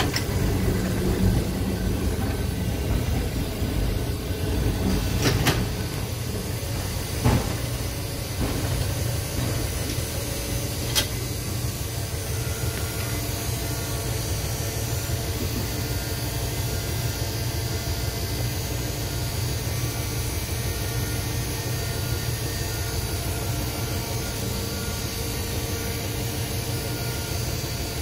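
Streetcar running along street track, heard from inside the car: a steady low rumble of wheels and running gear, with three sharp clicks in the first dozen seconds.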